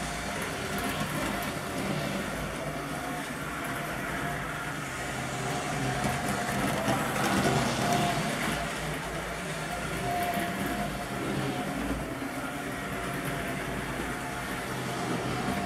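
Model train running on a home layout: a steady hum with a faint whine from the small electric motor and the wheels on the rails.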